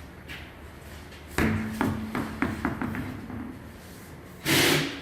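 A hard object strikes the ground and bounces several times, the bounces coming faster and faster, with a ringing tone under them. Near the end come two short, loud, noisy bursts.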